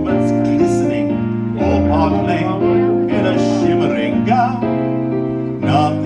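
Recorded backing music for a 1940s popular song playing through a PA speaker during an instrumental passage, with steady sustained chords and notes changing every half second or so.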